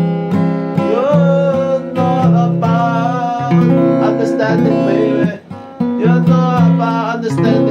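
Acoustic guitar playing a blues intro: rhythmic strummed chords, with notes that slide in pitch in the first couple of seconds.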